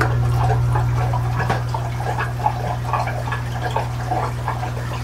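Water trickling and splashing in an aquarium room, with scattered small drips, over a steady low electrical hum from the running pumps.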